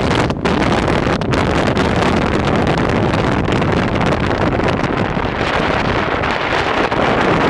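Loud, steady rushing noise of wind on the microphone and a moving vehicle, with no distinct events.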